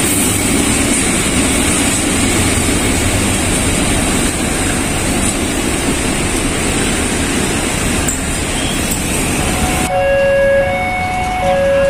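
A freight train of fuel tank wagons rolling past on the rails, a steady rumble with a high hiss. About ten seconds in it cuts abruptly to background music with a repeating melody.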